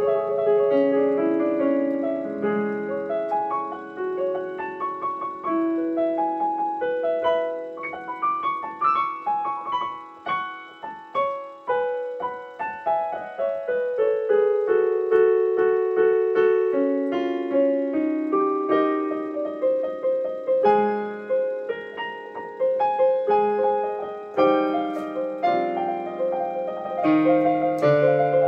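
Digital piano played solo: a flowing run of struck notes and chords with two hands. It softens briefly about ten seconds in, then builds to denser, louder chords near the end.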